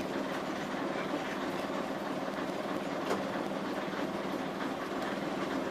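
Inside the saloon of a London Transport RF, an AEC Regal IV single-deck bus, on the move: the steady drone of its underfloor diesel engine and road noise, with light rattles from the body and fittings and a sharper rattle about three seconds in.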